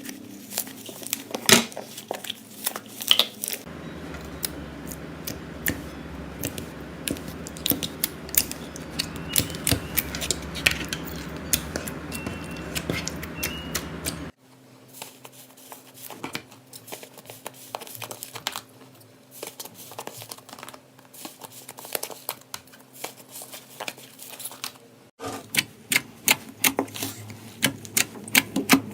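Slime being squeezed and handled, with many sharp crackling clicks and pops. The low background hum changes abruptly a few times.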